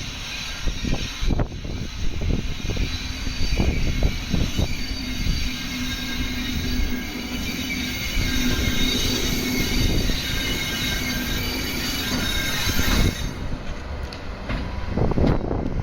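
JR East ED75 AC electric locomotive passing close by, its wheels knocking over rail joints and squealing on the rails, with a steady hum. The sound fades to wind near the end.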